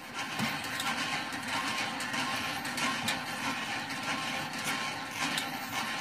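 A lever-handled hand water pump being worked: irregular clanks and knocks from the handle and mechanism over a steady rushing noise.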